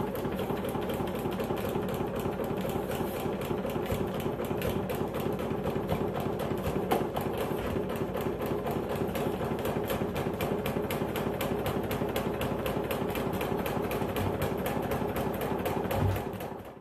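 Sheet metal flanging machine running steadily with a fast, even clatter as its rollers turn a flange along the edge of a sheet metal panel.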